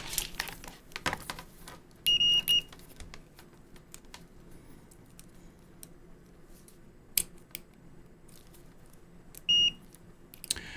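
Fluke 15B+ digital multimeter beeping as it is tried out after a fuse replacement: a high electronic beep twice in quick succession about two seconds in, and once more, briefly, near the end. Sharp clicks and taps of handling the meter and its probes come in between.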